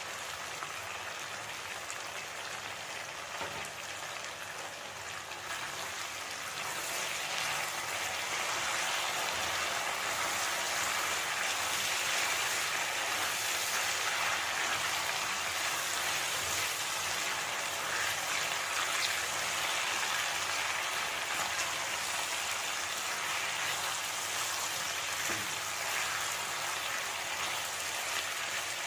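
Food sizzling in hot oil in a pan, a steady hiss that grows louder about seven seconds in.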